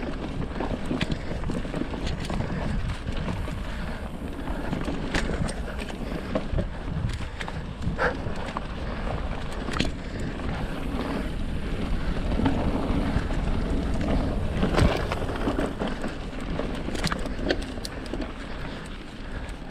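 Mountain bike riding down a dirt singletrack: wind on the microphone and tyres on the dirt, with the bike giving scattered knocks and rattles.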